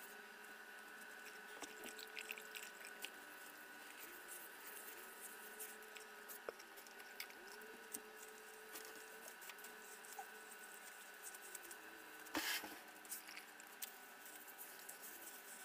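Faint scraping, rubbing and light tapping of a floor being cleaned by hand, with one louder scrape about twelve seconds in.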